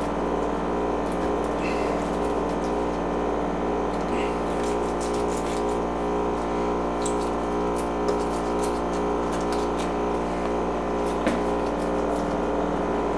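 A steady mechanical hum made of many even tones, with a few faint short clicks and scrapes as a fillet knife works into a striped bass's head behind the eye to cut out the cheek.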